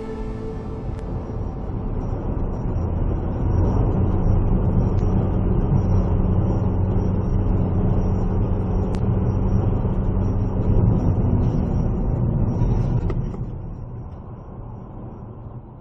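A road vehicle's engine hum and tyre noise, growing louder over the first few seconds, holding steady, then fading away over the last few seconds.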